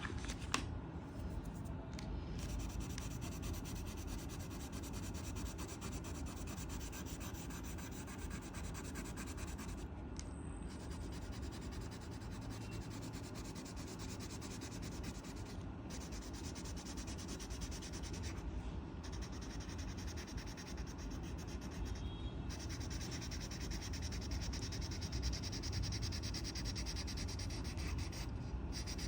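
A colouring tool scribbling back and forth on paper in continuous strokes, stopping briefly a few times as it lifts off the page.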